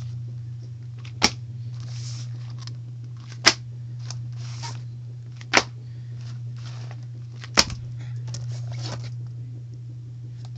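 Spiral notebooks and paper being handled, with soft rustles between sharp clicks that come about every two seconds, four in all, over a steady low hum.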